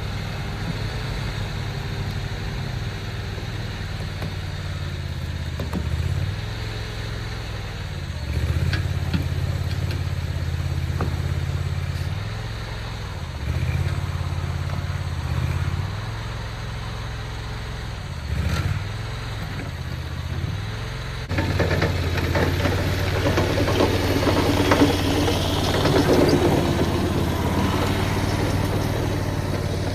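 Mini skid steer engine running while the machine drags a heavy utility pole on a chain; the engine note dips and recovers several times as the load and throttle change. About two-thirds of the way in it steps up louder and busier, and stays that way.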